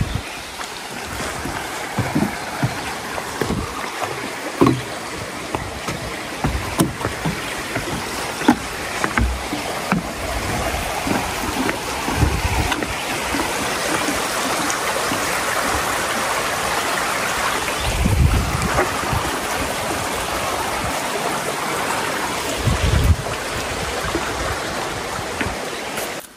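A creek rushing over rocks, a steady noise that grows louder toward the middle. Low thumps of footsteps on the wooden footbridge planks come now and then.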